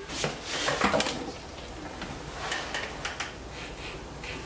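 Handling noise as thread is worked through the bobbin winder's tension discs on a Juki DDL-8700 industrial sewing machine: rustling with a few light knocks in the first second, then fainter scattered clicks.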